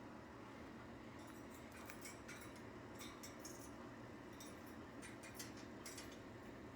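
Faint, scattered high-pitched ticks and soft chirps from budgies over a steady low room hum.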